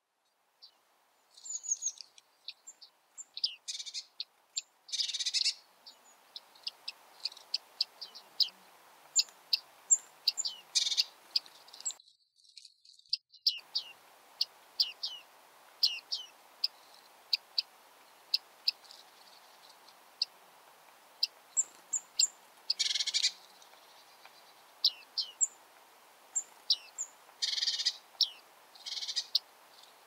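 Bearded reedlings calling: many short, high notes that slide down in pitch, sometimes several a second, with a few louder, rasping bursts.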